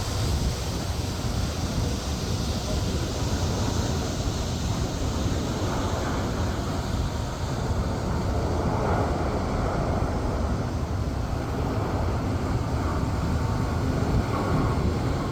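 Steady rumble of jet airliner engines with no clear rises or breaks, with wind buffeting the microphone.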